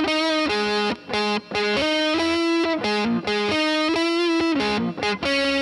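Background music: a riff on distorted electric guitar, with a few short breaks.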